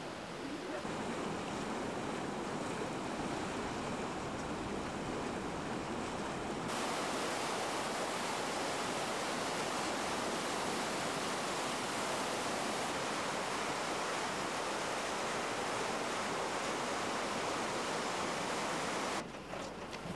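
A swollen, flooding river rushing steadily. The water noise changes abruptly about a second in and again about seven seconds in, and near the end it drops to a quieter background with a few clicks.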